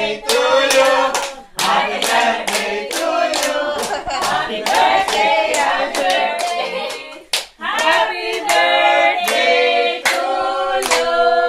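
A group of people singing a birthday song together while clapping along in a steady beat. The singing breaks off briefly about seven seconds in, then picks up again.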